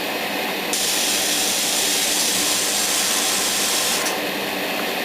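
Airbrush spraying: a steady hiss of air and paint lasting about three seconds, starting under a second in. Beneath it runs the steady hum of the spray booth's exhaust fan.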